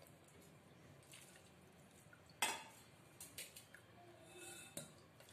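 Stainless-steel mesh strainer knocking against the steel bowl beneath it as it is handled: one sharp clink about two and a half seconds in, then a few fainter taps.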